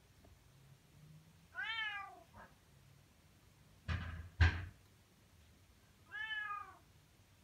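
Bengal cat meowing twice, each meow rising then falling in pitch. The owner says this meowing is usually the cat asking for food. Between the meows come two sharp knocks, about half a second apart, the louder of the two the loudest sound here.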